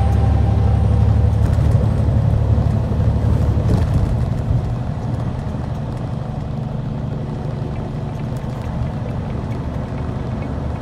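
Steady low rumble of engine and road noise heard from inside a vehicle driving at highway speed, a little louder in the first few seconds before easing slightly.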